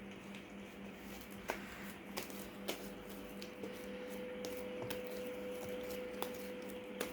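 Homemade detergent slime being handled, making soft squishing sounds with scattered little sticky clicks and pops. A faint steady tone joins about halfway through.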